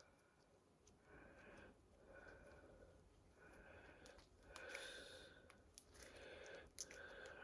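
Faint breathing close to the microphone, a breathy puff about once a second, with a few small clicks in between.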